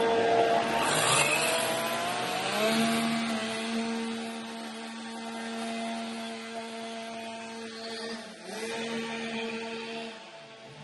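Chainsaw engine running at high revs as it cuts into a log, with a pitch that holds mostly steady. The pitch dips and climbs back about eight seconds in.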